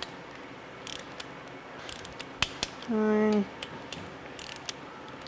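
Torque wrench ratcheting in short runs of clicks, with a few sharper single clicks, while the oil pump screws are tightened to 120 inch-pounds. A voice says "nine" about three seconds in.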